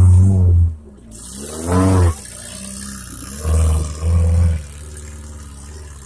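Small off-road 4x4's engine revving hard in four short bursts, each rising and falling in pitch, under load as it crawls through a deep rut. Between the bursts it runs at a lower steady level.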